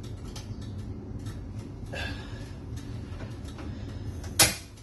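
A steady low hum with scattered faint ticks, then one sharp metal clink near the end as a metal fork knocks against the cooking pot when stirring starts.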